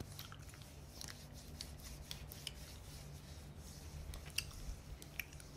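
Faint, close-up rubbing of hands and fingers with scattered soft clicks, a couple of sharper clicks near the end, over a steady low hum.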